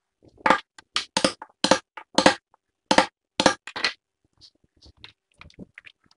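A quick, irregular run of about a dozen short knocks and taps on the solid wood table top as its crack is worked with hand tools, stopping about four seconds in with only a few faint ticks after.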